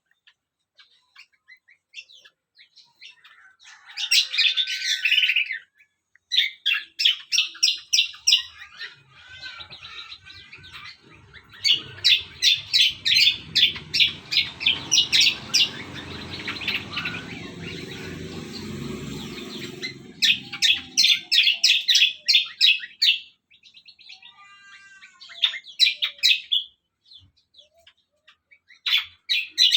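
A songbird singing in phrases of rapid, high chirps, each a few seconds long with short pauses between. A low rumble sounds underneath for several seconds in the middle.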